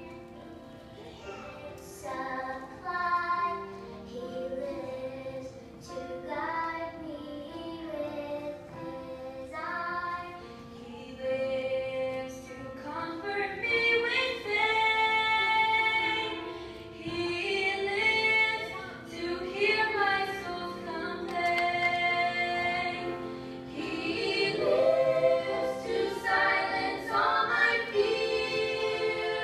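Three women singing a melody together, holding long notes, growing louder about halfway through.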